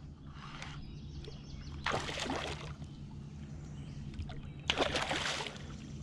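Hooked freshwater drum splashing at the surface beside the canoe: two short splashes about three seconds apart.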